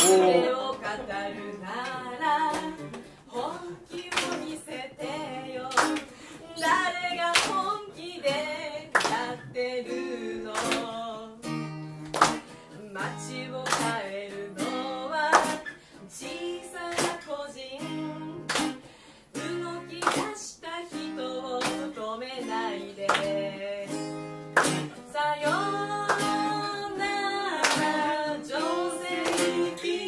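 A woman singing a song to a strummed acoustic guitar, with a steady strumming rhythm under the melody.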